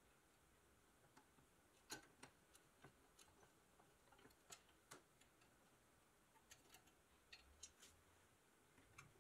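A toy tow truck's hand-cranked winch reeling in a rusted steel toy plane by its cord: faint, irregular clicks and ticks.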